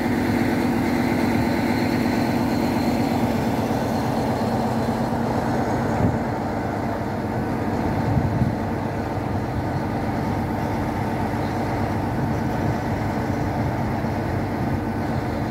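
Diesel train's engine idling at the platform, a steady low drone with a constant hum that drops slightly in level about six seconds in.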